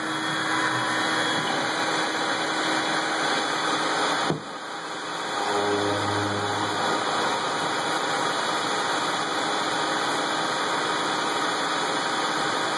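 CNC-converted Grizzly G4002 metal lathe running a parting-off cut on hex bar stock, spindle turning with flood coolant spraying: steady machine noise. A short click and a brief dip in level come about four seconds in.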